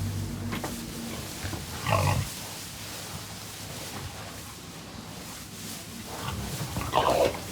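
Pigs grunting and squealing, with two louder calls about two seconds in and near the end. A low steady hum underneath stops about two seconds in.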